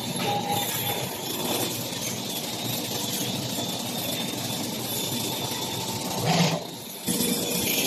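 Steady factory machinery noise, with a louder burst a little over six seconds in, then a brief dip before the noise returns.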